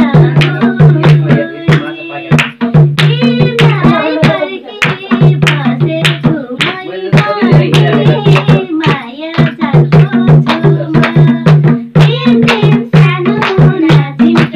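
Nepali dohori folk song: a madal hand drum played in a steady, quick rhythm under women singing together.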